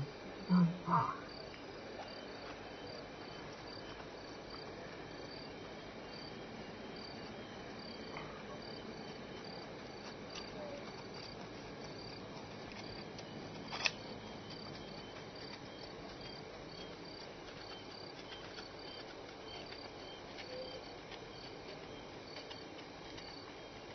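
Crickets chirping at night in a steady, even rhythm over a low background hiss. Two short, louder sounds come about a second in, and a single sharp click comes about halfway through.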